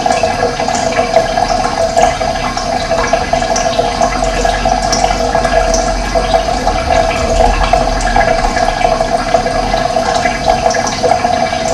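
Running water flowing steadily, a loud, continuous rush with no pauses.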